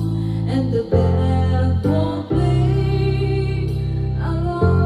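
Karaoke singing: a voice sings into a microphone over a backing track of held chords, played through a JBL PartyBox speaker. The chords change about a second in, a little after two seconds, and again near the end.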